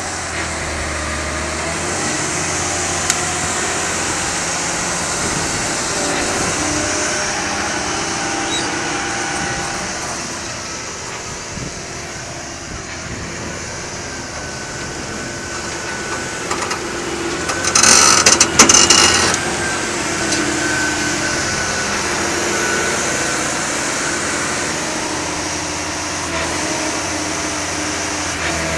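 Case IH Quadtrac 600 tracked tractor's diesel engine running steadily under load as it drags a steel scraper box through loose soil. About two-thirds of the way through there is a brief spell of loud, rough noise bursts.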